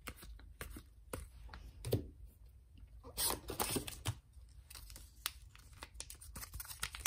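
Trading cards being handled and put down on a table, with short clicks and rustles, then a foil trading-card pack crinkling and being torn open. The densest rustling comes a little after three seconds in.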